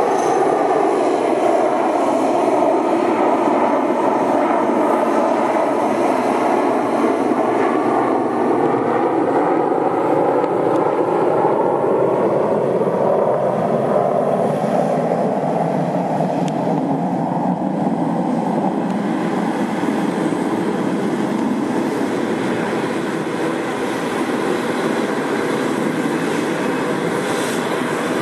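Kuznetsov NK-86 turbofans of an Ilyushin Il-86VKP running at takeoff power: a loud, steady jet roar as the four-engined aircraft rolls down the runway and lifts off. The tone of the roar sweeps slowly down and back up as the aircraft moves past.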